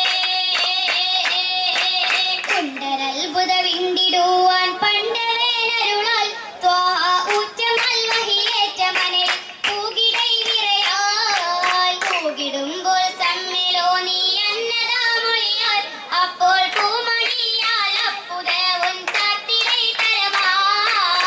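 Female voices singing an Oppana song, with the dancers' sharp hand claps keeping the rhythm throughout.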